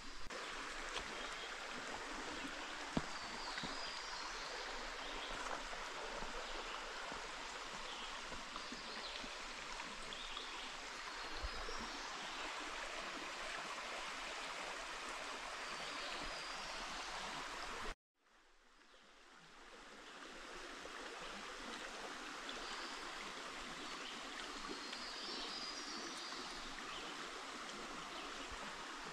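Steady rushing of a flowing stream. It cuts out suddenly a little past halfway and fades back in.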